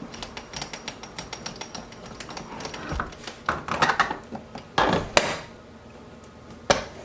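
Newly fitted casement window latch and handle being worked, with rapid small metal ticks, then louder clicks and scraping clacks, the loudest about five seconds in and one more click near the end. The mechanism is a little bit tight.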